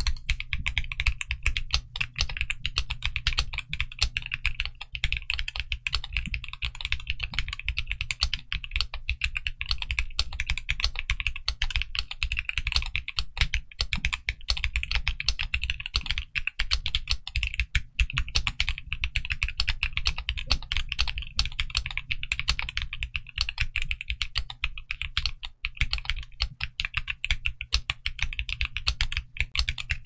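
Fast, continuous typing on a TG67 v3 mechanical keyboard fitted with Gateron Milky Yellow Pro linear switches and Cherry-profile dye-sub PBT keycaps, the keystrokes coming many per second without a break.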